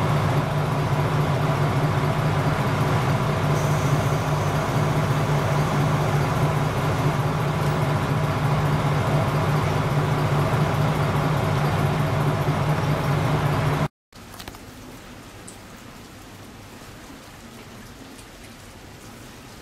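KiHa 47 diesel railcar's engine idling steadily at a standstill, a loud, even low drone. About fourteen seconds in it cuts off abruptly, and a much quieter, even hiss follows.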